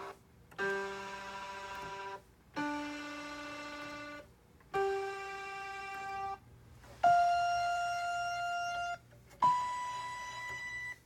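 RockJam RJ761 electronic keyboard playing five held notes one after another through its built-in speaker, each starting sharply and sustaining about two seconds, with short gaps between. The notes carry a crazy buzzing from the speaker, a fault on this keyboard straight out of the box.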